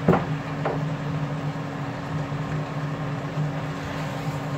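Steady low mechanical hum, as of a motor or fan, with two short knocks near the start, the first the louder.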